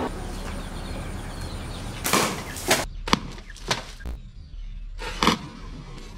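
Slingshot shooting: a few sharp snaps and hits, the loudest about two seconds in and again about five seconds in, as a shot strikes a small drink can and bursts it, spraying liquid.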